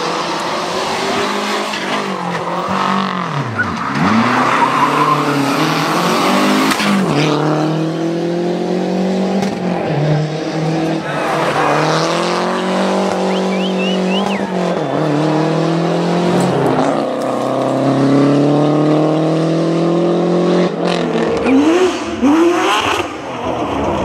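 Rally car engines at full throttle on a tarmac stage, one car after another. Each engine revs up and its pitch climbs, then drops sharply at each gear change, with quick throttle blips near the end.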